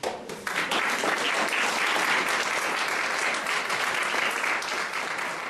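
Audience applauding, a dense steady clapping that breaks out about half a second in and eases off slightly near the end.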